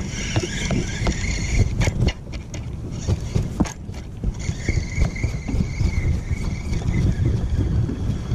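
Wind buffeting the microphone, with a spinning reel whirring in two spells as its handle is cranked to retrieve line.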